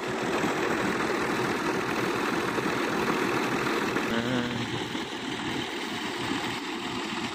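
Tractor diesel engine running steadily under load as it drives a river-water irrigation pump, together with the rush of water gushing from the pump's discharge pipe into the channel.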